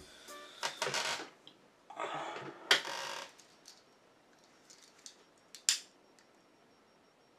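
Handling rustles with a sharp click in the first three seconds, then a disposable lighter struck once, a quick scrape and click, about five and a half seconds in.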